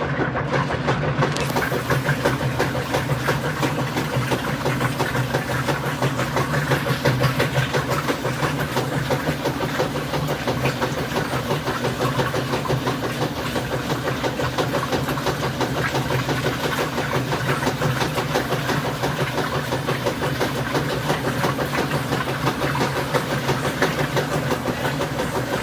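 Washing machine running its rinse cycle: a steady motor hum over an even hiss.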